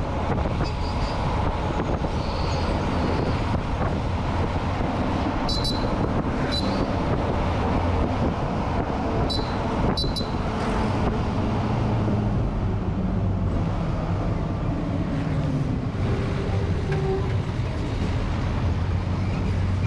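Road and traffic noise heard from a moving vehicle: a steady low rumble with wind and tyre noise. Four short high-pitched beeps come in two pairs a little before the middle, and an engine hum grows in the second half as a tipper truck draws close.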